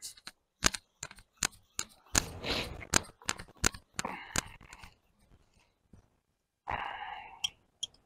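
Dry leaf litter and twigs on a sandy riverbank being disturbed: scattered sharp clicks and short crunching bursts with quiet gaps between.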